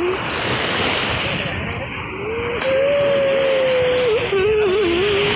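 Choppy lake waves washing and breaking against the shore, with wind buffeting the microphone. Through the second half a distant voice holds a wavering note.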